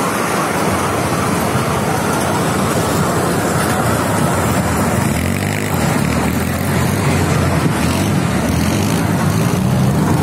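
Open mini tourist train running along its track: a steady, loud running rumble, with a low hum joining in about halfway through.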